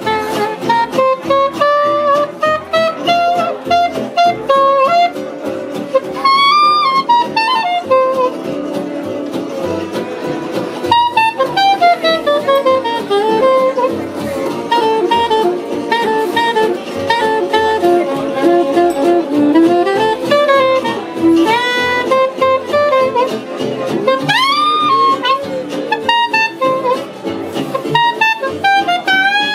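Soprano saxophone playing a jazz solo line with runs and bent notes, over strummed guitars and mandolin keeping a steady beat.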